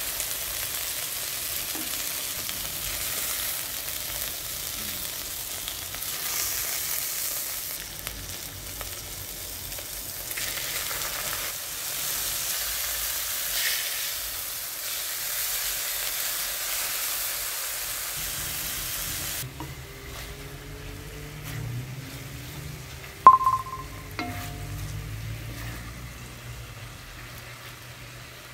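Chicken pieces sizzling as they sear in an enamelled Dutch oven, turned with wooden tongs. The sizzle drops suddenly to a quieter level about two-thirds through, and a single sharp clink sounds near the end.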